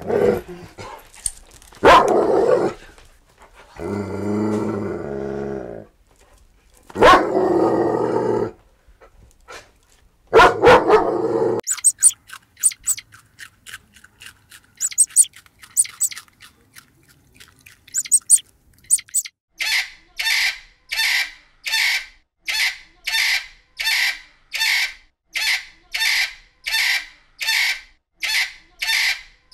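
Dogs barking in sharp loud barks, with a drawn-out growl between them, for the first dozen seconds. Faint rapid high squeaks follow, then from about two-thirds of the way in, a harsh bird call repeats at an even pace about one and a half times a second, which fits the pictured rainbow lorikeets.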